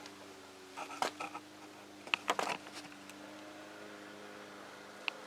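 A few short clicks and papery rustles of handling over a steady low hum, with the clicks about a second in and again a little after two seconds.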